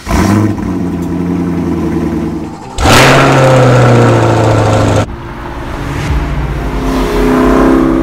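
Chevrolet Corvette V8 exhaust revving. About three seconds in it jumps suddenly to a louder held rev that cuts off sharply two seconds later, then the engine climbs in pitch as the car accelerates.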